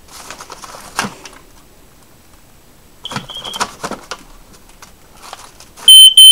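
Rattling and clicking as a corroded 1980s Probe 101 smoke detector is handled, with a brief chirp from it about three seconds in. Near the end its alarm sounds in three loud, shrill beeps in quick succession. It works only intermittently, which the owner puts down to corrosion on the battery contacts.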